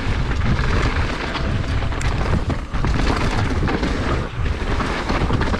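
Mountain bike descending a dirt trail: wind blasting the camera microphone over the rumble of knobby tyres on dirt and the steady clatter and knocks of the bike over roots and rocks.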